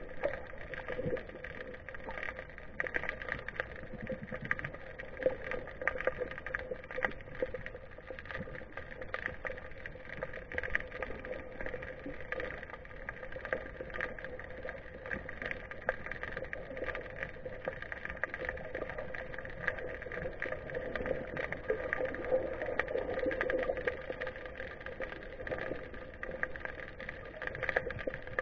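Underwater ambience picked up through a GoPro's waterproof housing: a steady muffled hum with a constant scatter of small crackling clicks.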